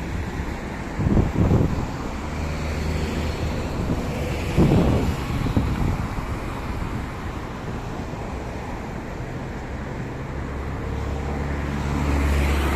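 Road traffic in a city street: a steady hum of passing motor vehicles, with a low engine drone swelling near the end. Wind buffets the microphone about a second in and again about four and a half seconds in.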